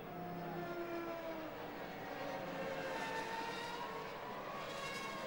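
Formula One cars' V10 engines running past, several engine notes heard at once, their pitch gliding up and down. The sound swells about three seconds in and again near the end.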